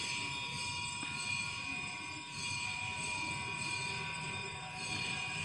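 Soft background music of steady held tones.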